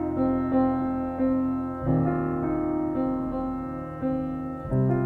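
Background piano music: a note or chord struck about once a second over held low notes that change about two seconds in and again near the end.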